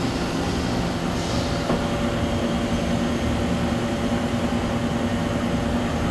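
Mazak VQC-40 vertical machining center running with its spindle turning, a steady mechanical hum. A small click sounds about two seconds in, and a higher steady whine then joins the hum, likely an axis drive moving the table or head.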